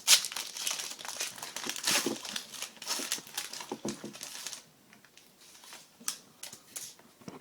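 An Upper Deck Artifacts hockey card pack being torn open: the foil wrapper crinkles and tears for about four and a half seconds. After that come only a few light clicks and rustles.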